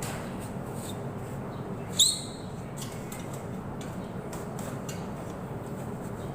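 A brake squealing once, sharp and brief, about two seconds in, over a steady low hum.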